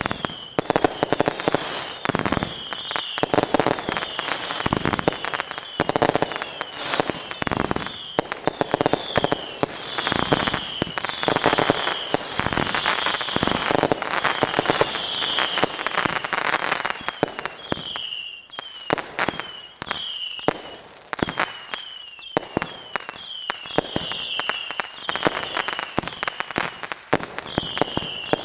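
Fireworks going off in a continuous barrage: rapid sharp bangs and crackles, overlaid with many short, high, falling whistle-like tones. There is a brief lull about 18 seconds in.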